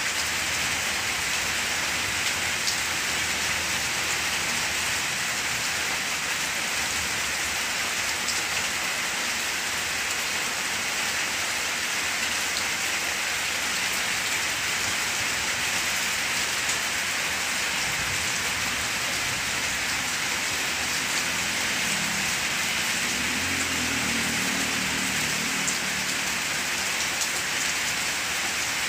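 Steady rain falling on banana plants, pattering on their broad leaves.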